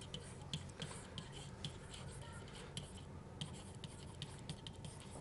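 Faint taps and light scratches of a stylus writing on a tablet surface: small irregular clicks, a few a second, over a faint steady hum.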